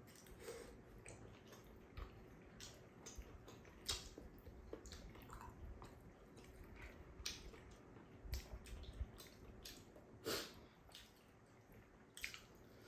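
Two people eating tteokbokki: soft wet chewing and mouth sounds with scattered small clicks of chopsticks against bowls and the pan, a couple of them a little louder.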